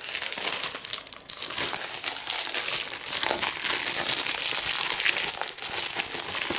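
Clear plastic film crinkling and crackling as it is pulled off a small stretched canvas.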